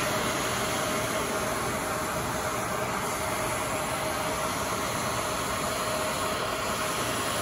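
Hair dryer running, an even rush of air with a constant motor hum.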